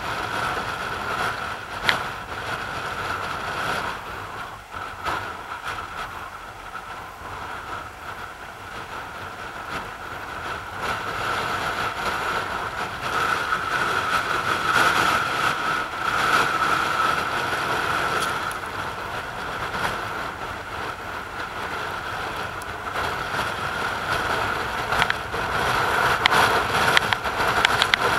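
Rough sea surging and breaking against rocks: a continuous rushing wash that grows louder after about ten seconds, with a few sharp cracks near the end.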